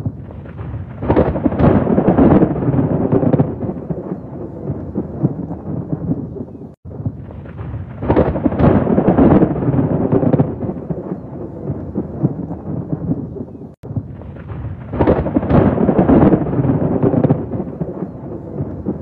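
Rolling thunder over steady rain, swelling into a long rumble three times. The same roughly seven-second stretch repeats as a loop, with a brief cut to silence between repeats.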